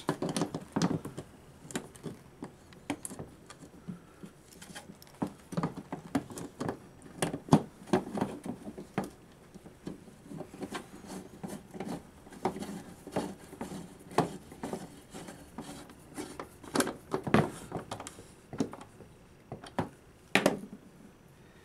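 Irregular clicks, taps and knocks as a metal wall-pack light housing and its glass lens are handled and closed up, a few louder knocks among them.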